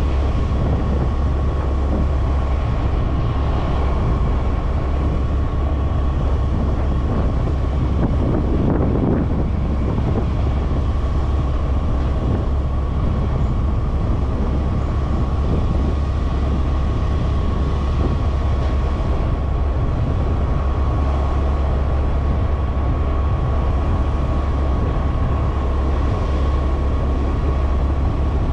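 Steady drone of a road vehicle under way: a deep, even engine and road rumble with a thin steady whine above it.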